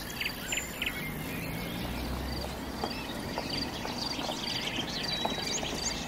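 Outdoor ambience of birds chirping, with short calls repeated in quick even series and high trills, over a steady background hiss. A brief low rumble comes about two seconds in.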